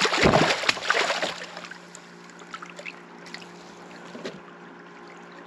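A small channel catfish thrashing and splashing water against the kayak for about a second and a half, then quieter drips and small knocks.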